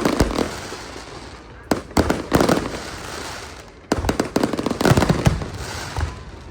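Aerial fireworks bursting: sharp bangs and crackling volleys in quick clusters, with a lull of about a second midway.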